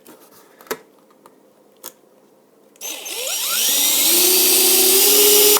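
Electric drill with a 9/64-inch bit starting up about three seconds in, its whine rising and then holding steady as it bores a wire hole through the RC truck's plastic body. A few small clicks come before it.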